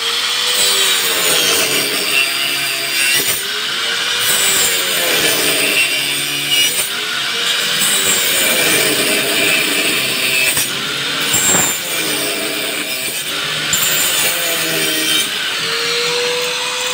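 Handheld angle grinder with a cutting disc cutting through the edge of a wooden board panel. The motor's whine drops in pitch each time the disc bites into the wood and climbs back as the cut is eased, over and over.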